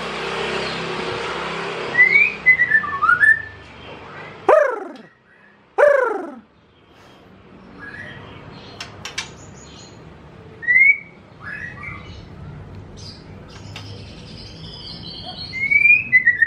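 White-rumped shama singing in its cage, already in song though only just arrived from a long journey. Two loud, long falling whistles come about a second and a half apart, followed by short rising whistles, chirps and a quick high twittering near the end. A rushing noise lies under the first few seconds.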